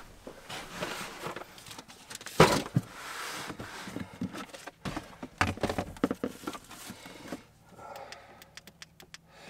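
Plastic storage bins and their contents being rummaged through and moved about in a carpeted truck bed under a camper shell: irregular rustling, clicks and knocks, with one loud knock about two and a half seconds in.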